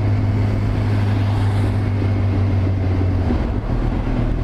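Yamaha YZF-R6's inline-four engine running steadily under way on the motorcycle, with wind and road noise. The steady engine note falls away about three seconds in, leaving a lower hum.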